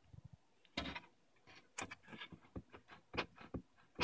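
Light, irregular clicks and taps of a circuit board being worked loose from its slot inside a computer-style control box.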